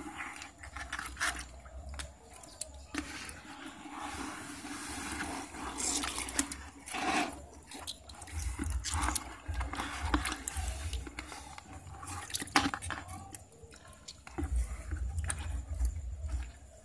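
Water sloshing and splashing in a plastic tub as a hand stirs through and lifts a pile of wet tilapia, with irregular wet slaps and squelches of the fish against each other and the tub.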